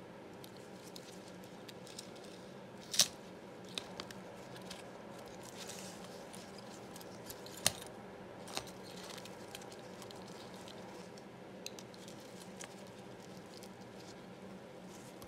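Handling noise from a lanyard's metal clip and badge reel: scattered small clicks and soft rustling over a steady low hum, with two sharp clicks, about three seconds in and again near eight seconds in, louder than the rest.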